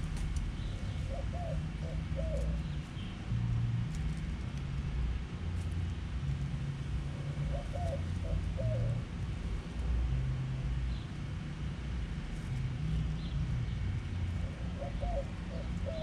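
White-winged dove cooing: a short phrase of several hoots, given three times about six seconds apart, over a steady low rumble.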